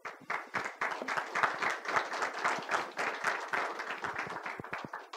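Audience applauding: many hands clapping at once, starting suddenly and dying away near the end.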